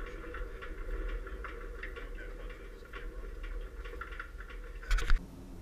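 Fairchild J44 turbojet running at a steady speed, heard through its test-stand frame from a camera in a waterproof case: a muffled low rumble with a few steady tones and irregular ticking and rattling from the frame. About five seconds in there is a short louder burst, after which the sound drops lower.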